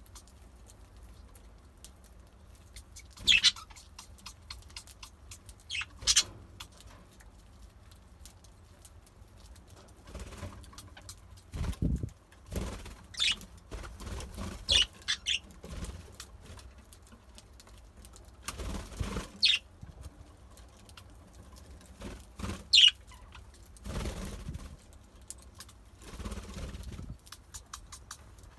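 Budgerigars giving short, sharp chirps every few seconds, with a few brief wing flutters.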